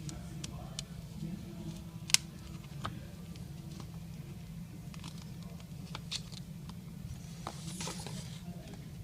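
Plastic pry card sliding under a tablet's glued digitizer glass, making scattered small clicks and scraping ticks, with one sharp click about two seconds in, over a steady low hum.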